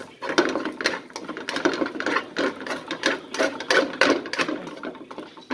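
Spatula scraping and stirring fried rice around a pan, in quick, repeated, uneven strokes.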